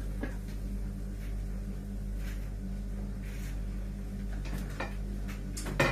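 Steady low kitchen hum with a few faint knocks as a metal lid is lifted off a pan of rice. Just before the end, metal pots and utensils start to clink loudly.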